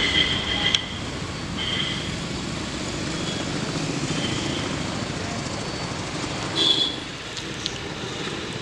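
Steady outdoor traffic rumble with a few short high horn toots: one at the start, a fainter one near two seconds and the loudest near seven seconds.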